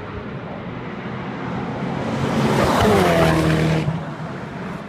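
Koenigsegg One:1's twin-turbo V8 passing by at speed on the circuit. It grows louder over about two seconds, peaks about three seconds in with its pitch dropping as it goes past, then cuts off fairly suddenly.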